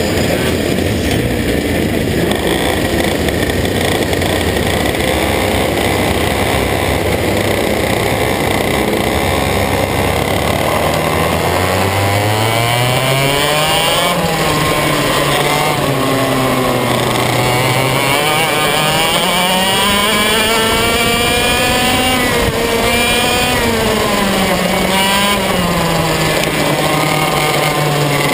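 125cc two-stroke TaG kart engine heard onboard, running at a steady low idle, then pulling away about 12 seconds in and revving up and down repeatedly as the kart speeds up and slows for the corners.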